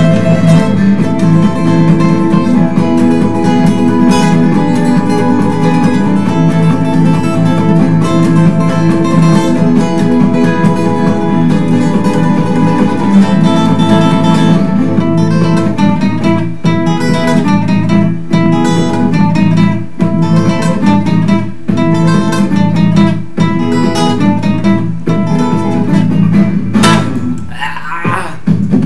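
Acoustic guitar strummed in a fast, steady rhythm, chord after chord.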